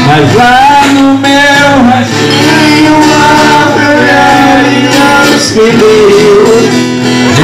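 Live amplified music: men singing into microphones to a strummed acoustic guitar.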